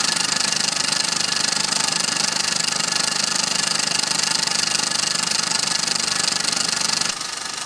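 Mamod Minor 2 toy steam engine running fast in full steam: its single oscillating cylinder gives a rapid, steady chuffing over a strong steam hiss. A little after seven seconds the hiss drops suddenly while the quick chuffing goes on.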